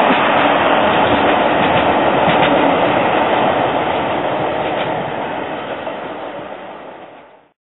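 Škoda 15T ForCity low-floor tram running along street track, its wheels and running gear rumbling on the rails. The sound slowly dies away as the tram moves off and then fades out near the end.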